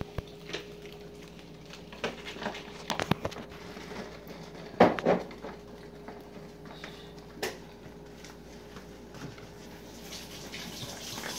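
Plastic dog food bag crinkling and crackling as a small dog rummages with its head inside it, in irregular sharp crackles, the loudest cluster about five seconds in and a longer rustle near the end. A faint steady hum sits underneath.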